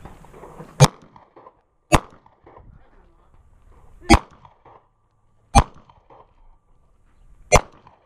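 Semi-automatic pistol fired five times at an unhurried, uneven pace, the shots about one to two seconds apart.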